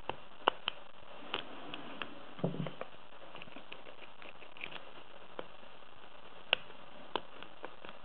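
Metal lock pick and tension wrench working inside a padlock: irregular small clicks and scrapes as the pick lifts and sets the pins, with a short run of softer knocks about two and a half seconds in.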